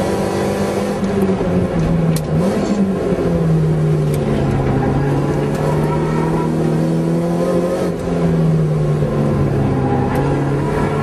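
Toyota AE86 Corolla's engine heard from inside the cabin at speed on track. The pitch dips and briefly rises about two seconds in, then holds lower and steady before climbing slowly toward the end, with a few faint clicks.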